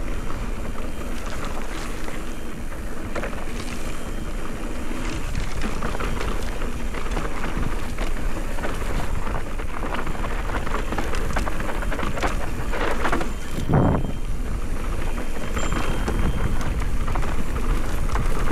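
Wind buffeting an action camera's microphone while a mountain bike rides down a dirt trail, with tyres rumbling over the ground and frequent rattling knocks from bumps. A heavier thump comes about three-quarters of the way through.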